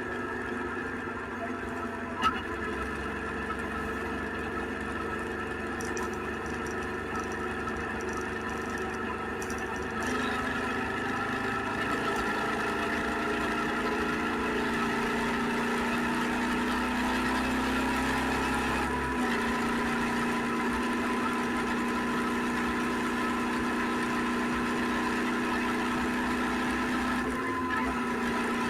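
SVT650X motorcycle engine idling steadily, stepping up a little in loudness about a third of the way in.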